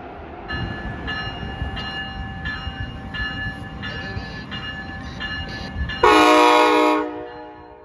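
Amtrak ACS-64 electric locomotive arriving, its bell ringing steadily over the rumble of the train. About six seconds in comes a loud horn blast lasting about a second.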